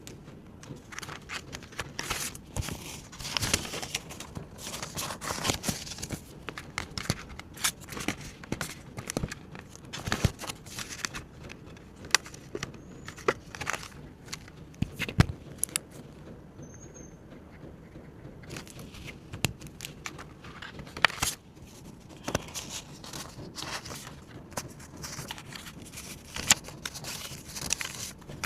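Paper banknotes and paper savings supplies being handled: on-and-off crinkling and rustling with many light clicks and taps.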